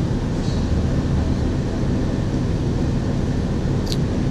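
Steady low drone of screen-printing shop machinery running, with one short click about four seconds in.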